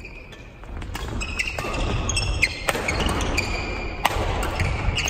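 Badminton doubles rally: a string of sharp racket-on-shuttlecock strikes, roughly a second or less apart, with short shoe squeaks on the wooden court floor.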